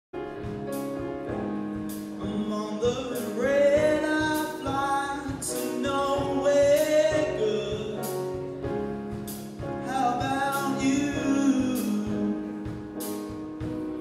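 Live band playing: a male singer's voice over electric guitar, piano and drums, with drum and cymbal hits keeping a steady beat.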